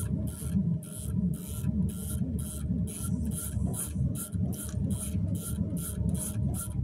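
CNC router's Z-axis drive moving the spindle down in short jogs as the pendant hand wheel is turned, about three pulses a second over a low, wavering motor whine.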